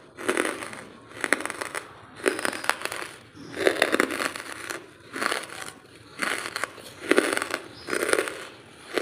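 Close-miked crunchy chewing of charcoal chunks, a burst of crackling crunches about once a second.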